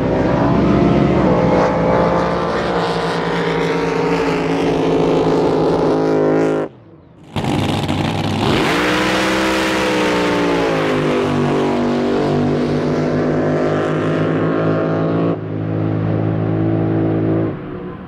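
Supercharged drag boat engines running hard on passes down the course, a loud, steady engine note. The sound cuts out briefly about seven seconds in, then a second run starts, its pitch dipping slightly before holding steady, and it grows quieter near the end.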